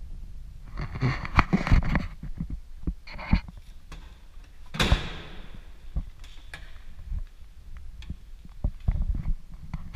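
Handling noise around a stripped car body: irregular knocks and rustling, with one sharp metallic clank that rings briefly about five seconds in.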